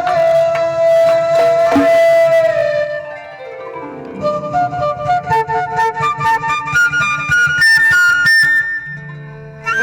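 Instrumental music led by a flute: one long held note, a falling glide, then a run of quick notes climbing in pitch over a low drone.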